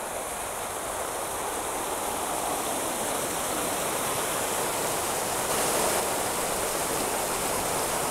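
Fountain jets splashing steadily into a round stone basin, a dense even rush of falling water that grows a little louder.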